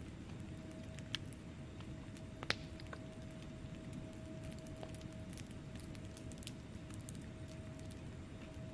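Wood fire in a fireplace crackling, with scattered small snaps and two louder pops, the louder one about two and a half seconds in, over a low steady rumble of the flames.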